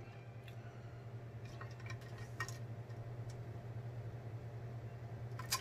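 Faint swallowing and gulping as water is drunk from a large glass jar, over a steady low hum, with a few soft clicks and one sharper click near the end.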